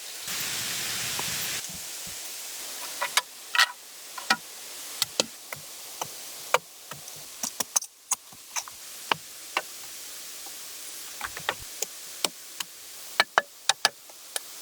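A series of irregular sharp knocks and clicks over a steady hiss, after a brief rush of noise in the first second and a half.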